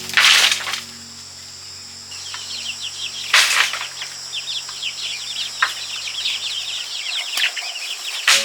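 Chickens: many rapid, short falling cheeps, with two louder noisy bursts, one at the start and one about three seconds in, over soft background music that drops out near the end.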